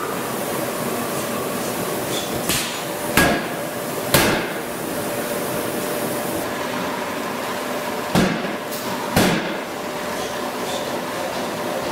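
Drop-forging hammer striking hot steel in a closed die to forge connecting rods: a series of sharp, heavy blows, three within about two seconds, a pause, then two more a second apart, each ringing briefly, over a steady forge-shop hum.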